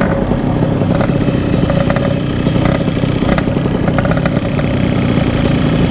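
Yamaha RX-King's 135 cc two-stroke single-cylinder engine running steadily at speed through its stock-style exhaust.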